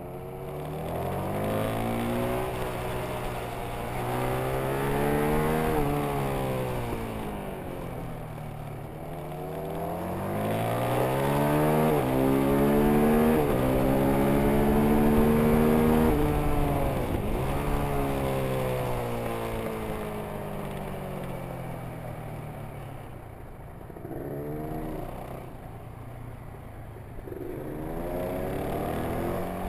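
Motorcycle engine heard onboard at track speed, its revs climbing hard on the straights and dropping away as the throttle shuts for the corners, over steady wind rush. It is loudest in the long pull in the middle, then falls steeply.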